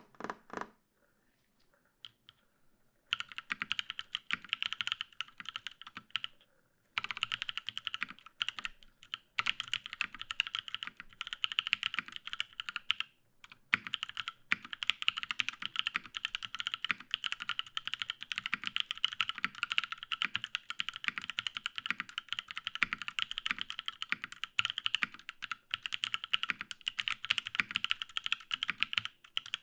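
Fast typing on a Matrix 8X V2.2 mechanical keyboard with lubed Paco switches, an aluminium plate and GMK keycaps. A few single keystrokes come first, then a steady run of quick clacks with a short break about six seconds in.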